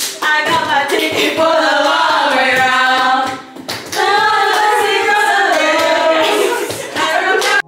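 A group of young women singing together unaccompanied, with a short break about three and a half seconds in.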